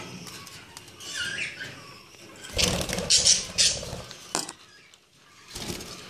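Caged budgerigars and other pet parrots calling: a short chirp about a second in, then a loud burst of noise with sharp high calls from about two and a half to four seconds, and a shorter burst near the end.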